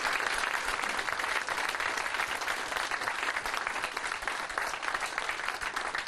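Audience applauding steadily, many hands clapping at the end of a talk; the sound cuts off abruptly near the end.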